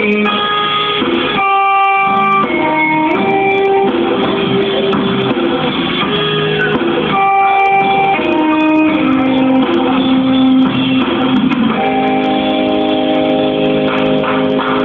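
Guitar music: an instrumental passage of notes held for a second or more each, changing pitch, with no singing.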